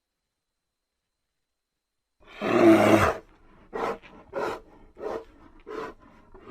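Brown bear roaring: one loud, rough roar starting about two seconds in, followed by four short grunts at a steady pace of roughly two a second.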